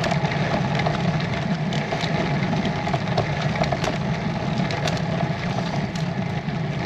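Road bike climbing slowly on a rough, leaf-strewn lane, picked up by a bike-mounted camera: a steady low rumble of tyres on the road surface and frame vibration, with scattered small ticks.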